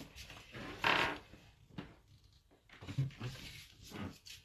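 Brief handling noises: a short rustling scrape about a second in, then a few soft low knocks around three seconds.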